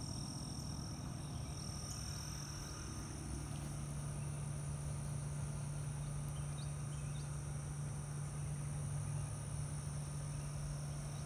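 Outdoor ambience: insects droning steadily at a high pitch over a low, steady hum.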